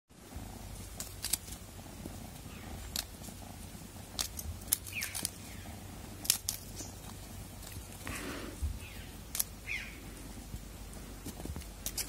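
A kitten playing with a toy dangling on a string over dry dirt and leaves: scattered sharp clicks and ticks over a steady low rumble, with a few short, high chirps.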